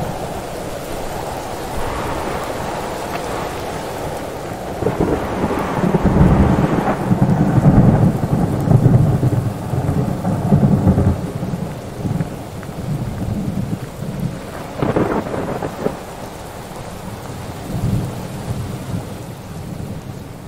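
Thunderstorm: steady rain with rolling thunder that swells heaviest in the middle, a sharp crack of thunder about three-quarters of the way through, then one more rumble as it fades out.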